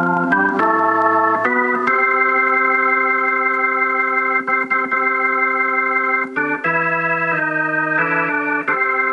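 Organ played through a Leslie 122 tube amplifier, holding sustained chords. It changes chord quickly a few times, holds one chord for about four seconds, then changes chords several more times near the end.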